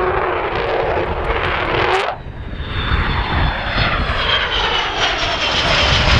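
Avro Vulcan B2's four Rolls-Royce Olympus jet engines running during a display pass, with a tone sliding down in pitch. A sharp click about two seconds in, where the sound briefly dips, then the engines return with a high whine that falls slowly in pitch.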